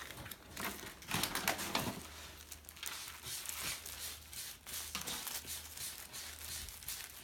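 Packaging and wrappers crinkling and rustling in irregular spurts as items are handled and dug out of a gift box.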